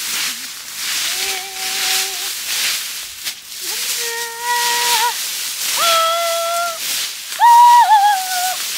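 Dry fallen leaves rustling and crackling in uneven bursts as they are scraped up by hand from the forest floor. Over it come four long, clear held notes about a second each, each pitched higher than the last; the final one near the end is the loudest and wavers as it ends.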